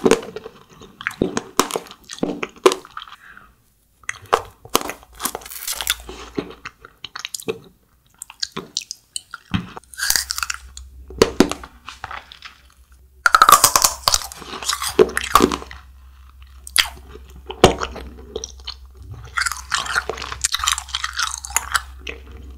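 Close-up crunching and chewing of a frozen wax-bottle candy (Nik-L-Nip): irregular clusters of sharp crackling bites and chews with short pauses between them.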